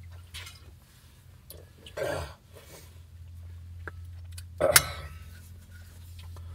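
A man's throat noises after a swig of hard liquor from the bottle: a rasping exhale about two seconds in and a sharp, loud cough-like burst near five seconds, over a steady low hum.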